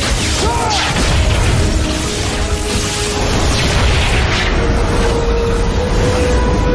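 Sound-design effect of crackling, rumbling superspeed lightning energy with a deep booming undertone, mixed with dramatic score music. A held musical note comes in about two thirds of the way through.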